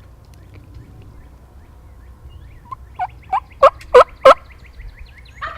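A run of about six turkey yelps, each note falling in pitch, the last three much louder than the first. A rougher, rattling burst follows near the end.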